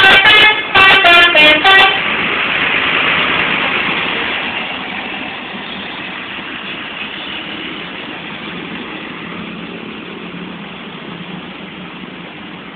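Telolet multi-tone musical air horn on a Garuda Mas super-high-deck bus playing a quick run of short notes at changing pitches, stopping about two seconds in. A rushing noise follows and slowly fades away.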